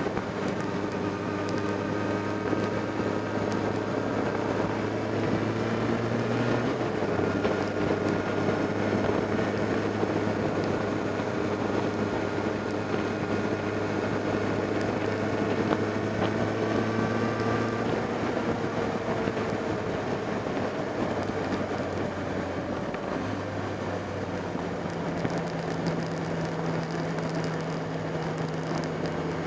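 Motorcycle engine running at road speed, heard from low beside the front wheel, with steady wind and road noise. The engine note shifts in pitch about a quarter of the way in and again a few times near the end.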